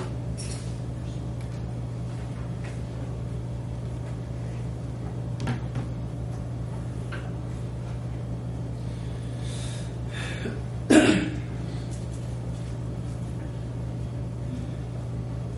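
Quiet classroom room tone: a steady low hum with faint small clicks and rustles, broken about eleven seconds in by one brief loud noise.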